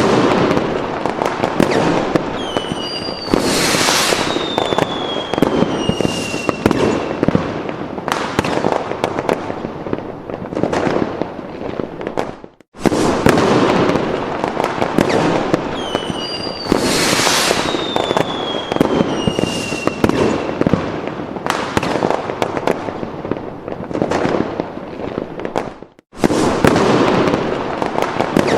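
Fireworks sound effect: dense crackling and banging with whistles that fall in pitch. It is a loop that cuts out briefly about 13 seconds in and again near the end, then starts over.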